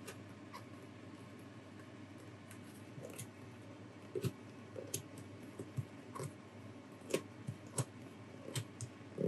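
Faint scattered clicks and light taps from handling a plastic RC car body while vinyl wrap is pressed down over its edge by thumb, coming mostly after the first few seconds.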